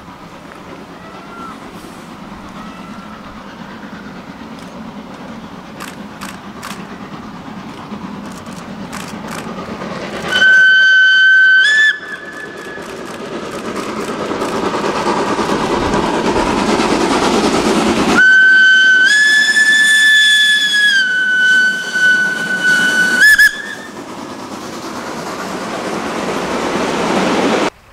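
Steam locomotive hauling a train of freight wagons as it approaches and passes, its running noise growing louder. It sounds its whistle twice: a short blast about ten seconds in, then a long blast of about five seconds that rises slightly in pitch and drops back.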